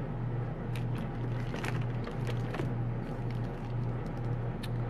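Cellophane shrink-wrap on a sealed deck of small game cards crinkling and crackling now and then as it is handled, over a steady low hum.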